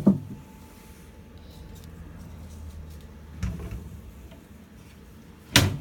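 Knocks and clunks of plastic storage drawers being handled to get a leopard gecko out: a clunk at the start, a duller bump about three and a half seconds in, and a sharp loud knock near the end, over a low steady hum.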